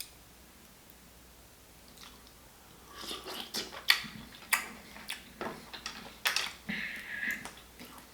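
Chewing and lip-smacking on seafood in butter sauce, starting about three seconds in, with a string of sharp wet clicks.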